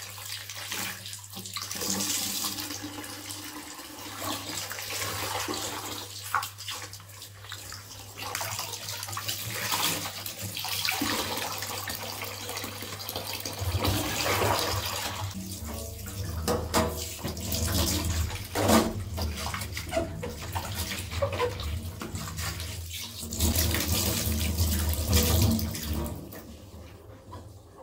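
Hand-washing cloths in a plastic basin in a stainless steel sink: water splashing and dripping as soapy cloths are wrung out. About halfway through, a tap starts running into the basin for the rinse, and the splashing gets fuller and louder.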